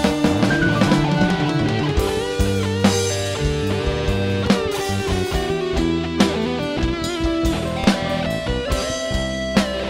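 Live band playing an instrumental break: a sustained guitar-like lead melody over electric bass, drum kit and Korg keyboard, with drum hits every second or two.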